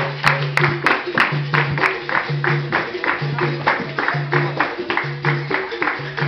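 Capoeira roda music: berimbaus sounding a low two-note rhythm, with a sharp beat of pandeiros and hand clapping about three times a second.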